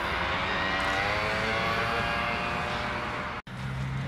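A droning engine with a slowly falling pitch over a steady rush of noise. It cuts off suddenly about three and a half seconds in, leaving a low steady hum.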